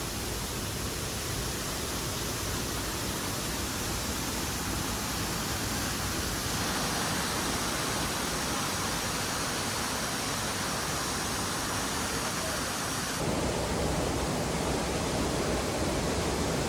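Steady rushing of a waterfall, its tone shifting abruptly twice.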